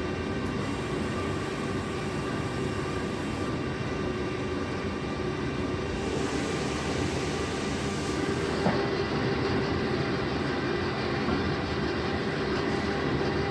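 A 20-litre PET jar washing machine running steadily with a continuous mechanical rumble and hum, and a single click about nine seconds in.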